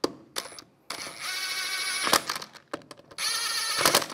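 Cordless brushless impact wrench running lug bolts into a wheel hub in two short bursts, one about a second in and another after three seconds, with a few sharp clicks between.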